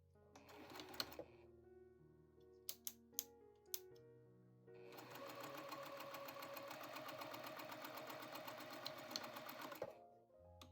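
Sewing machine stitching: a short run of about a second, a few sharp clicks, then a steady stitching run of about five seconds that stops near the end.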